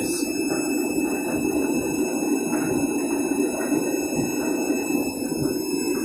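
Candy Grand'O Vita front-loading washing machine turning its empty drum during a rinse cycle: a steady, even running noise from the motor and drum.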